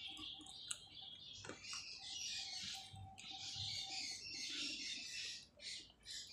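Small birds chirping and twittering faintly in the background.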